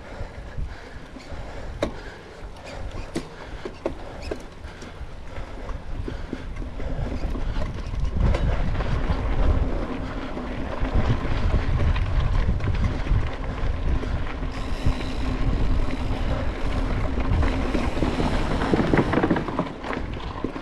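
Mountain bike rolling fast down a dirt and grass trail: knobby tyres on the ground, chain and frame rattling with scattered clicks over bumps, and wind buffeting the microphone. It gets louder from about eight seconds in.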